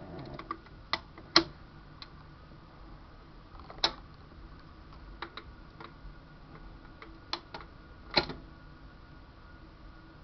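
Vinyl record playing on a record changer with no music, only surface noise: scattered clicks and pops from the stylus in the groove over a faint steady hum and hiss, the loudest pop about a second and a half in and another strong one near the end.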